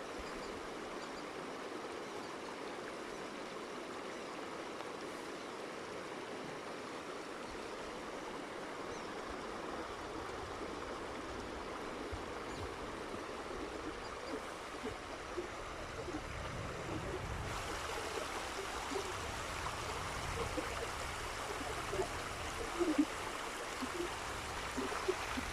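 Steady rush of river water running over stones. About two-thirds of the way through, a low rumble joins it and the sound grows a little louder, with a few small knocks near the end.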